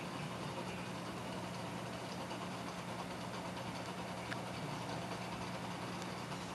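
Steady low electrical hum of a reef aquarium's pumps running, over a faint even hiss, with one small tick about four seconds in.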